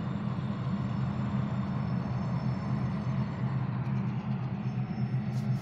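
Freight train passing: a steady low diesel drone with a hiss of rolling cars over the rails, as a long train of hopper cars and its four diesel locomotives go by.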